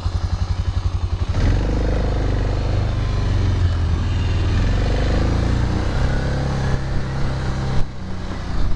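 Arctic Cat ATV engine idling with an even throb, then revving up about a second and a half in and running steadily under throttle as the quad drives off. The engine eases off briefly near the end.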